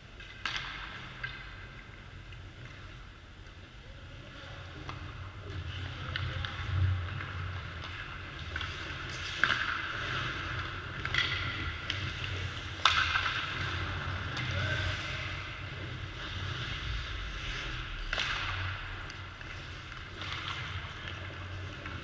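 Ice hockey practice: skate blades scraping and carving on the ice in swelling stretches, with several sharp knocks of sticks and pucks scattered through, the loudest about halfway. A low steady hum lies underneath.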